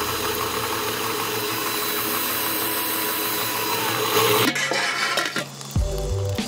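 Powered grain mill running steadily as it crushes dark malt (chocolate malt and Carafa 3), stopping about four and a half seconds in. Background music with low regular thumps follows.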